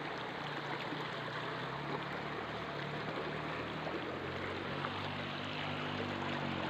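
Shallow stream rushing steadily over stones, with a faint low hum underneath.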